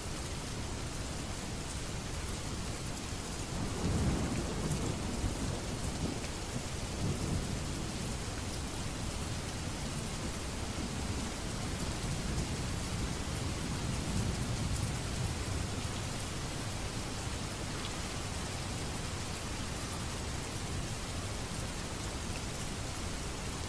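Steady rain. A low roll of thunder comes in about four seconds in and rumbles on, fading, for roughly ten seconds.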